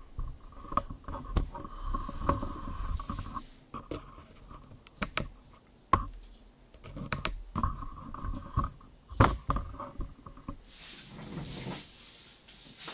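Handling noise from a handheld camera being moved: rubbing, scraping and sharp knocks on the microphone at irregular moments. A steady mid-pitched tone sounds under it in two stretches of a few seconds each.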